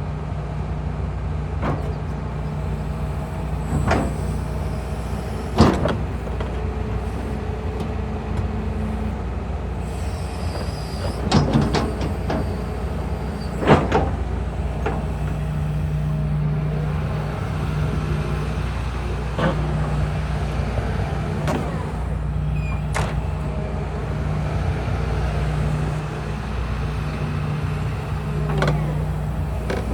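Hitachi ZX245USLC-6N excavator working, its Isuzu 16-valve diesel engine running under hydraulic load with a steady drone that strengthens about halfway through. Several sharp metallic knocks come through it, around a second and a half to four seconds apart at first and then more scattered.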